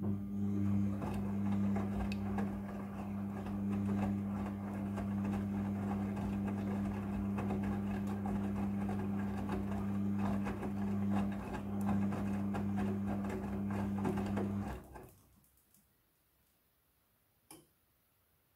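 Midea front-loading washing machine running during its prewash cycle: a steady electric hum with light rattling and clicking, which cuts off suddenly about fifteen seconds in, followed by a single faint click.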